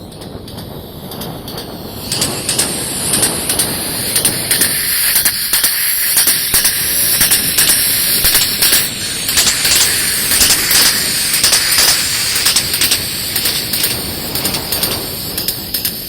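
Vocal mimicry of a fast train approaching and passing close by: a breathy, hissing rush that swells sharply about two seconds in, carried along with a run of rapid clicks, and eases off near the end.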